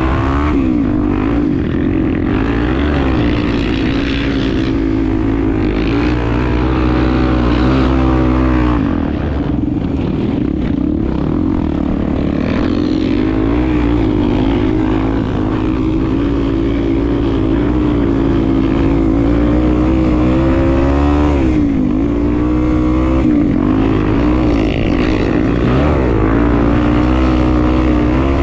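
Honda Tornado 250's single-cylinder four-stroke engine running while the bike is ridden, its pitch rising and falling with the throttle, over a steady low rumble.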